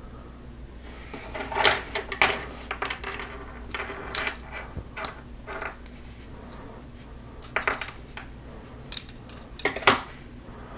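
Plastic clicking and clattering of Lego Technic parts being handled and fitted to a motor, a scatter of small clicks with the loudest a couple of seconds in and near the end.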